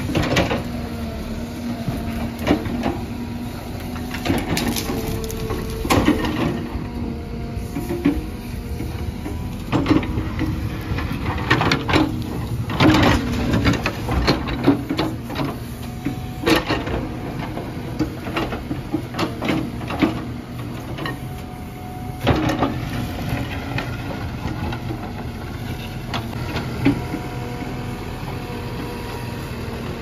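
Tata Hitachi Shinrai backhoe loader's diesel engine running steadily while the backhoe bucket digs and tears at brush. Repeated knocks, cracks and scrapes of the bucket against the ground and plants come thickest in the middle.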